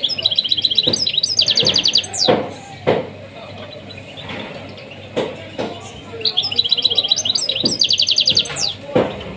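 Small caged songbird singing two phrases about six seconds apart. Each phrase is a run of rapid, evenly repeated trilled notes ending in a quick downward sweep. Sharp knocks sound every second or two behind the song.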